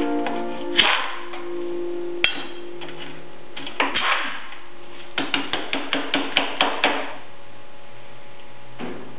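Hammer blows on parts of a steel garden-tractor mower deck: a few separate strikes, then a quick run of about nine blows, some five a second, about five seconds in, as a stuck part is knocked loose.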